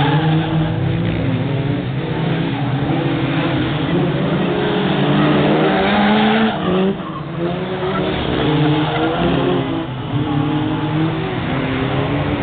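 A pack of Formula 2 stock cars racing round an oval, several engines at once, their pitches rising and falling as the cars accelerate and lift through the bends.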